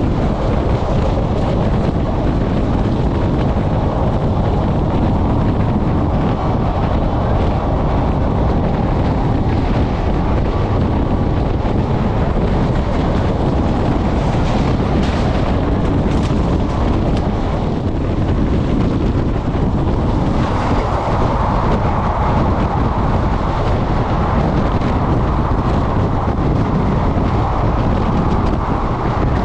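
Indian Railways express train, the Renigunta–Mysuru SF Express, running along the line: a steady, loud noise of the moving train with wind on the microphone. The sound changes in character about twenty seconds in.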